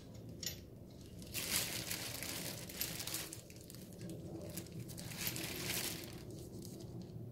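Crinkling and rustling of hands handling wrapping and small parts, with a few light clicks, starting about a second in and dying down near the end.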